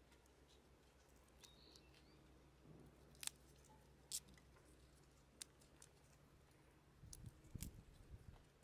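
Near silence with a few faint sharp clicks, then a cluster of soft low bumps near the end as taranome buds are handled on a wooden tabletop.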